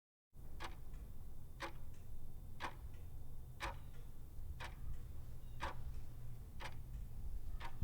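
Sharp ticks at an even pace of about one a second, like a clock, over a steady low hum; the sound starts abruptly just after the start and cuts off abruptly near the end.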